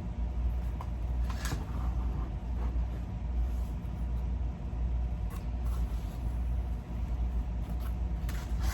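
A steady low rumble, with a few faint clicks and a rustle of handling near the end.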